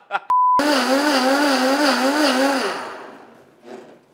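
A short beep, then a countertop blender runs at high speed, crushing ice into a frozen cocktail. Its motor pitch wavers up and down as the load shifts. About three seconds in it winds down and stops.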